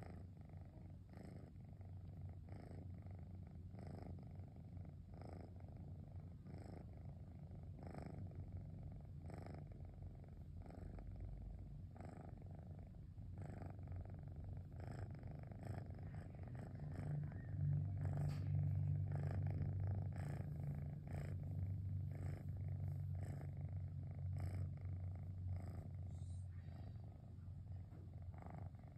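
Domestic cat purring steadily while being petted: a low, motor-like rumble that pulses in strokes a little under a second apart. It grows louder a little past halfway through.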